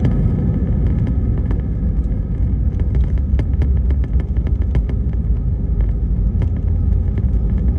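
Cabin noise of an Airbus A320-200 rolling on the ground after landing: a steady low rumble from the wheels and engines, with frequent small clicks and rattles. The rumble eases a little over the first couple of seconds as the aircraft slows.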